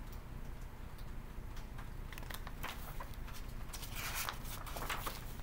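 A hardcover picture book being handled and moved, with light taps and clicks, then a few brief paper rustles near the end as it is shifted and its pages are turned.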